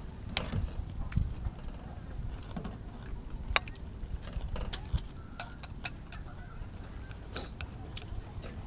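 Tableware clinking at a meal table: scattered short clicks of chopsticks, spoons and bowls, over faint background chatter.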